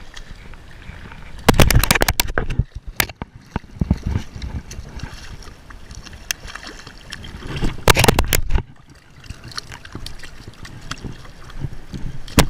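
Hooked bluefish being reeled in on a conventional reel, splashing at the water's surface. Two loud bursts of rapid crackling clatter come about a second and a half in and again about eight seconds in.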